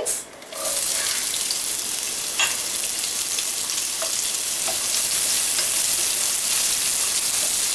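Chopped onions sizzling in hot olive oil in a pot, the sizzle starting suddenly about half a second in as they hit the oil, then holding steady. A wooden spatula stirs them, with a few faint ticks against the pot.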